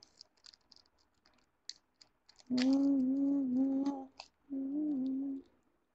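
A girl humming two held, slightly wavering notes, the first about a second and a half long, the second shorter. Before the humming, faint small clicks and crinkles of fingers working at a small glitter packet.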